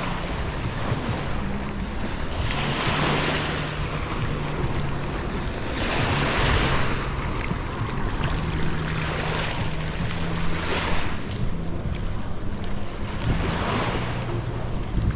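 Small waves washing up on the shore, the wash swelling and easing every few seconds, with wind rumbling on the microphone.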